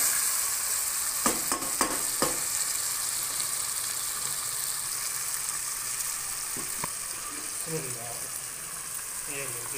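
Chicken in a thick, well-fried tomato-onion masala sizzling steadily in a pot. A wooden spoon knocks against the pot a few times in the first couple of seconds.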